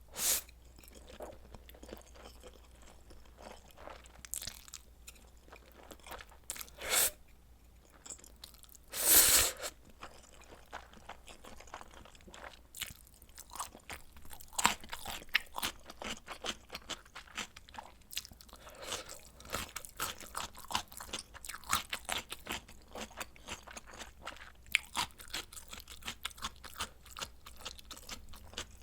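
A person eating, with crunching bites and chewing. There are a few separate loud bites in the first ten seconds, the loudest about nine seconds in, and then quick, steady crunchy chewing.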